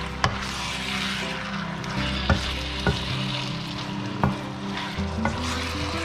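Beef strips and sliced onion sizzling in a hot frying pan as a wooden spoon stirs them, the spoon knocking sharply against the pan about six times.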